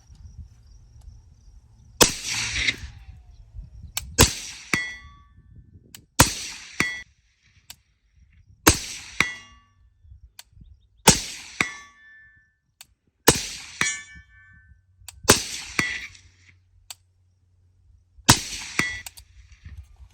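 Eight suppressed shots from an Aero Precision M4E1 rifle fitted with a Silencer Co. Hybrid 46M suppressor, spaced about two to three seconds apart. After most of the shots, a steel silhouette target about 150 yards away rings with a clang roughly half a second later: each ring marks a hit.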